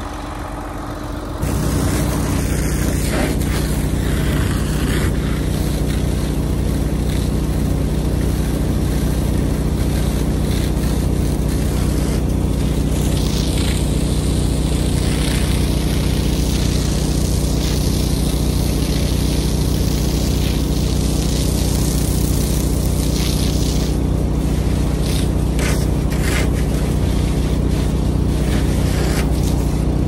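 A John Deere tractor's diesel engine left running at a steady idle, with a hose spraying water hissing over it. The sound jumps up about a second and a half in and then holds steady.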